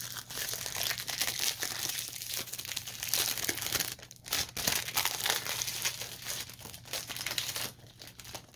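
Clear plastic cellophane wrap being peeled off a perfume box and crinkled in the hands. It makes a dense, continuous crackle that pauses briefly about four seconds in and again near the end.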